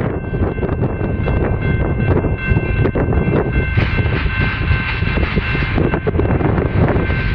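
Distant rumble of an approaching Union Pacific diesel freight locomotive, slowly building, mixed with wind buffeting the microphone. A steady high-pitched tone sounds over it.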